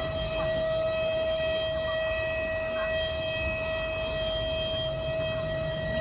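Locomotive horn sounding one long, steady blast at a single pitch, starting abruptly and held for about six seconds over the low rumble of the train.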